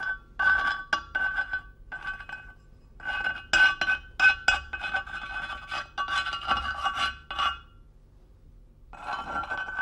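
A small hard object scraped and rubbed by hand across a rough, grainy surface, in irregular bursts with small clicks and a thin ringing tone running through the scraping. There is a pause of about a second near the end before the scraping starts again.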